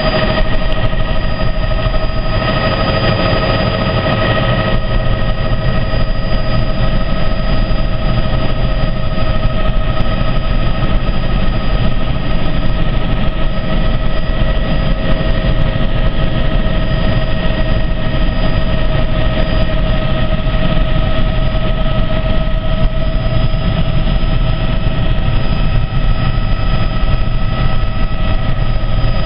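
Helicopter in flight, heard from inside the cabin: a steady, loud low rumble of engine and rotor, with several steady high whining tones over it.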